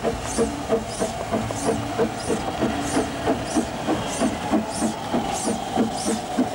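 Small narrow-gauge steam tank locomotive moving slowly, its exhaust beating evenly about three times a second over a steady hiss of steam.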